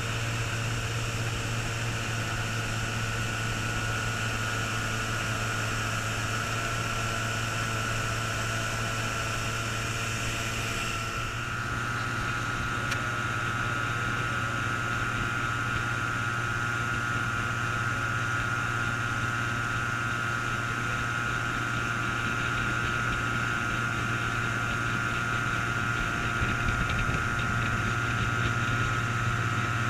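Antique outboard motor running steadily at cruising speed, heard from aboard the small aluminium boat it drives. A hissy rush over the engine eases about eleven seconds in, leaving the steady engine hum.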